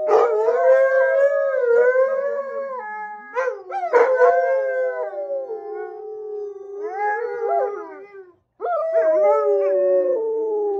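Several Alaskan Malamutes howling together in long, overlapping, wavering notes, with a brief break about eight seconds in before the howling starts again.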